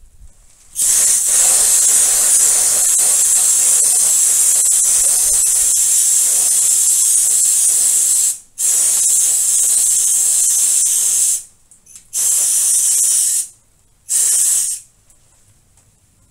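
Aerosol insecticide can spraying wasp killer in four blasts: a long hiss of about seven and a half seconds, a second of about three seconds, then two short puffs.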